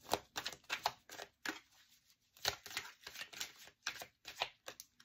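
Oracle cards being shuffled by hand: a run of quick, irregular card flicks and rustles, with a pause of about a second midway.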